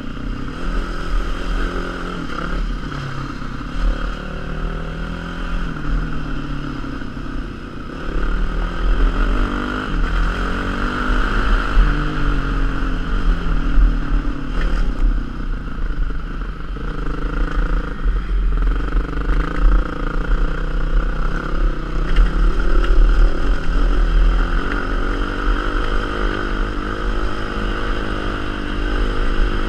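Yamaha WR enduro motorcycle's single-cylinder four-stroke engine running under the rider, its pitch rising and falling as the throttle opens and closes on a rough dirt track. A low wind rumble on the helmet-mounted microphone runs underneath, and it gets louder about eight seconds in.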